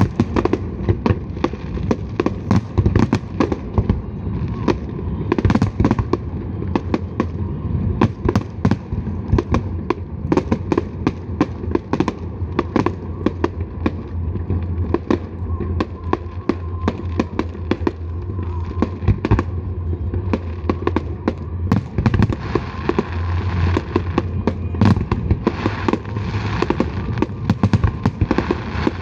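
Large fireworks display: a rapid, continuous barrage of shell bursts, several bangs a second. The crackling thickens about two-thirds of the way through.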